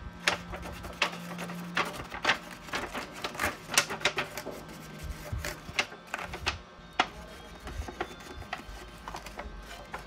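Metal spoon scraping and tapping against a disposable aluminium foil tray as a cream mixture is spread in it: a run of irregular light clicks and crinkles, several a second.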